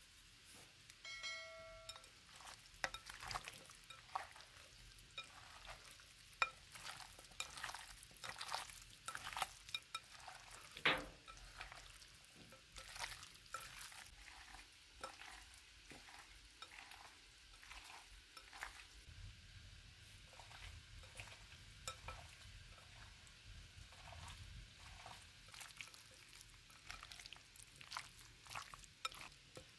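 Hands mixing and squeezing raw chicken pieces in a seasoned marinade in a glass bowl: irregular wet squelches and soft clicks. A brief pitched tone sounds about a second in.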